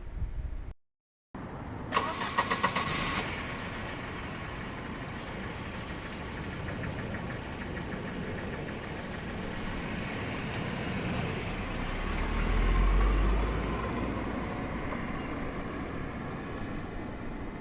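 1990 Volvo 240 DL engine cranked briefly by the starter about two seconds in, catching and settling into a steady idle. About twelve seconds in, a low engine rumble swells and then fades.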